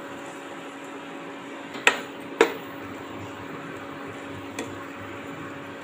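Curry cooking in a non-stick kadai on a gas stove: a steady hiss with a faint hum underneath. Two sharp knocks against the pan come about two seconds in, half a second apart, and a lighter one near the end as the gravy is stirred.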